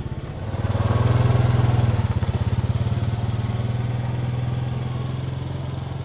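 Quad bike (ATV) engine running as it pulls away, a steady small-engine drone that grows louder about half a second in and then eases off slowly.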